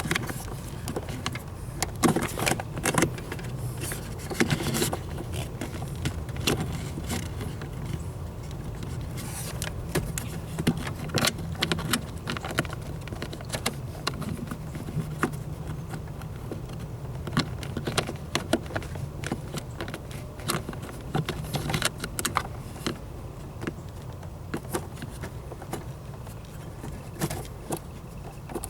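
Irregular small metallic clicks, clinks and rattles of hand work on a truck's throttle cable and its fittings, over a steady low hum.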